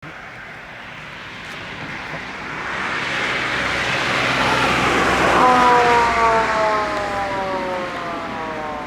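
Police patrol car going past under hard acceleration, its engine and tyre noise swelling to a peak about five seconds in. Its electronic siren then switches on suddenly with a long, slowly falling wail.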